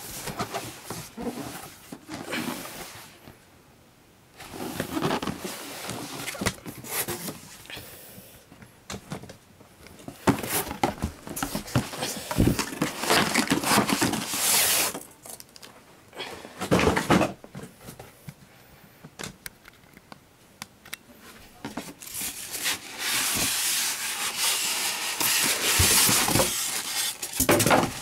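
Cardboard box and packing being handled by hand: cardboard flaps scraping and knocking, and plastic wrap crinkling, in irregular bursts.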